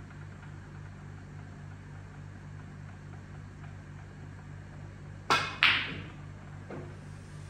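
Snooker shot: the cue tip strikes the cue ball, then about a third of a second later the cue ball clicks sharply into a red, the loudest sound. A faint knock follows about a second later as the red reaches the corner pocket.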